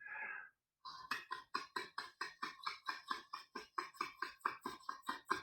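Tongue tapping lightly against the reed of a clarinet mouthpiece, with no tone: an even series of short, soft articulated puffs about five a second, as in a tonguing demonstration.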